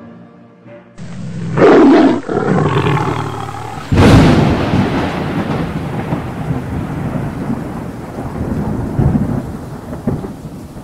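Thunder sound effect: a loud rumble about a second and a half in, then a sudden crack of thunder about four seconds in that rumbles on and slowly fades.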